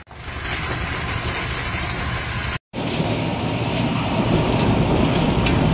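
Heavy storm rain pouring down as a steady, dense hiss with a low rumble underneath, broken by a short silent gap about two and a half seconds in where two pieces of footage are joined.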